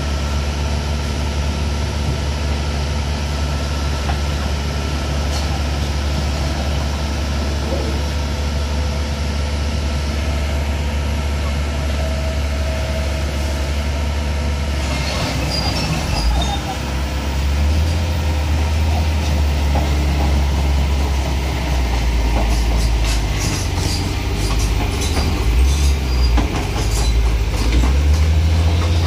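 Heavy diesel engine of a Kobelco SK200 crawler excavator running with a deep, steady drone. About halfway through, the engine note changes and grows louder and rougher as the machine works. In the last third come repeated sharp metallic clanks and squeals from the steel tracks and bucket.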